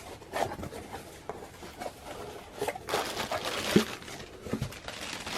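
A dulling knife scraping and slicing through plastic packaging, with irregular rustling and crinkling as the package is worked open.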